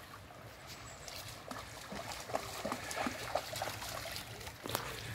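A dog splashing through shallow river water after a thrown ball, its strides making short, irregular splashes over the steady trickle of the stream.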